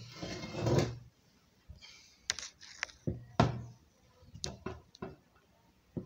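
Handling noise from a bicycle rear wheel being moved on a wooden table: a brief shuffle at first, then several separate knocks and clicks of metal and wood, irregularly spaced.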